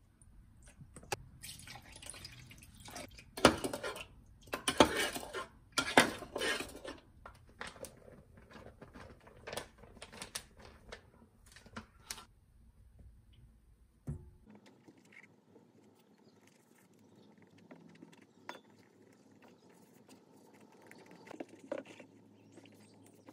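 Vinegar poured from a bottle into a measuring jug of sauce ingredients, then a spoon stirring and clinking in the jug, loudest a few seconds in. After a cut, quieter rustling and light taps as powder is shaken from a bag into a steel bowl and eggplant slices are coated in it.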